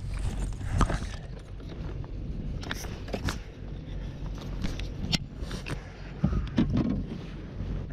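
Scattered clicks, knocks and scrapes of a landing net and fishing gear being handled just after a bass is netted, over a steady low rumble.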